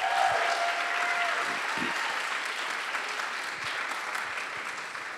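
Audience applauding, loudest at the start and slowly dying away, with a brief steady tone over it in the first second and a half.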